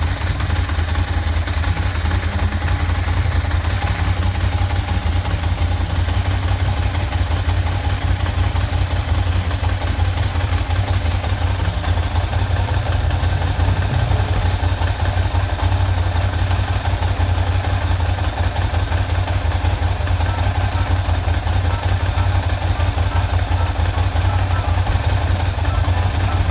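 Ducati Monster 1100S's air-cooled L-twin engine idling steadily.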